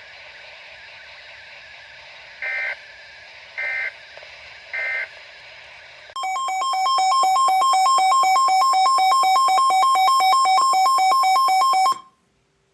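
Emergency Alert System broadcast audio: three short bursts of digital end-of-message data squawk. Then comes about six seconds of a loud, rapidly pulsing two-pitch electronic alert tone that cuts off abruptly. Faint steady radio hiss lies underneath.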